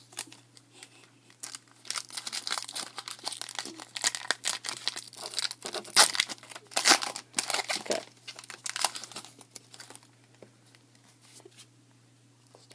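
Foil wrapper of a Topps baseball card pack crinkling and tearing as it is opened by hand, a dense run of crackles mostly from about two to ten seconds in.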